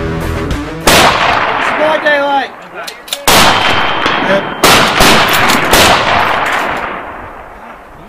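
Rifle shots from a line of prone shooters: four loud reports, about a second, three and a half, four and three-quarters and six seconds in, each trailing off in a long echo. Background music cuts off just before the first shot.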